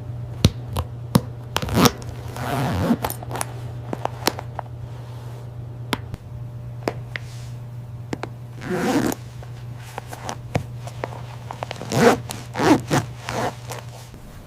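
A jacket zipper being pulled in several short runs, with scattered sharp clicks between them, over a steady low hum.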